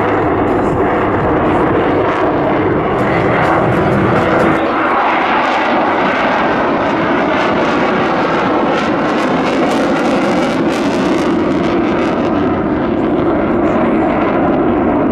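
Eurofighter Typhoon's twin Eurojet EJ200 turbofans at high power with afterburners lit, making a loud, continuous jet noise as the fighter manoeuvres past, with a rough crackle through the middle of the pass.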